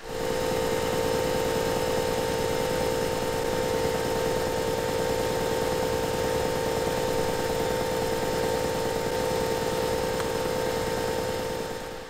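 An electric motor, as in a workshop power tool, running at a steady speed with an even whine over a hiss of noise. It starts suddenly and dies away near the end.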